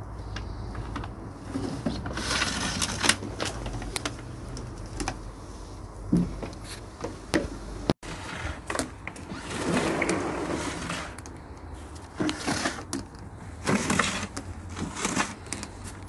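Irregular rustling and clicking of plastic vacuum cleaner hoses and bodies being handled and dragged, in several short bursts over a low rumble.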